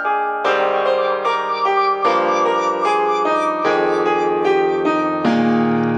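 Instrumental music led by piano chords, with a lower part coming in about half a second in. The chords change about every second and a half.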